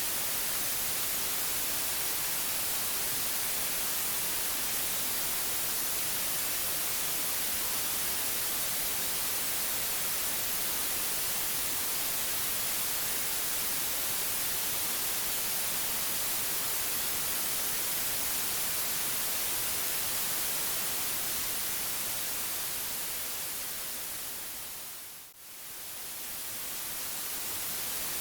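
Steady white noise hiss, even and without any tone, brightest in the highs. Near the end it fades down briefly and swells back up, as at the seam of a looped track.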